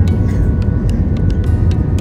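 Background music with heavy bass and quick percussion ticks.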